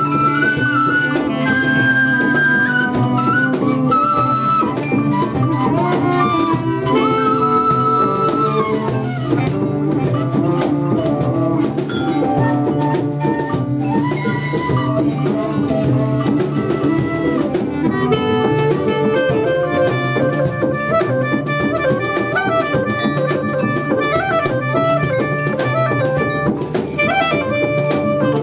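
A live band playing jazz-like ensemble music: drum kit and hand percussion keep a busy rhythm under wind instruments playing long, gliding melody lines.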